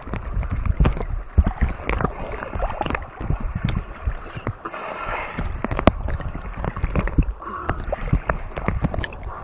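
Seawater sloshing and gurgling around a camera in a waterproof case bobbing at the surface, with frequent sharp knocks and clicks as water slaps the housing, heard from inside the case.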